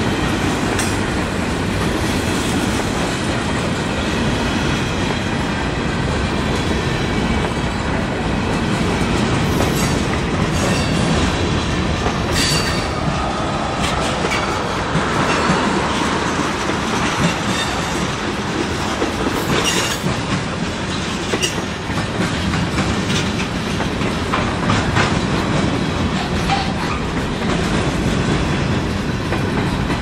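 Freight cars of a CSX manifest train (covered hoppers and tank cars) rolling past: a steady rumble of steel wheels on rail with clickety-clack over the joints and a few sharp clanks, the clearest about twelve and twenty seconds in.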